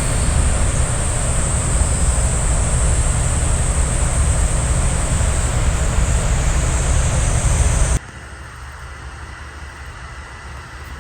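Steady noise of sea surf and wind, with wind buffeting the microphone. It cuts off abruptly about eight seconds in to a much quieter steady background.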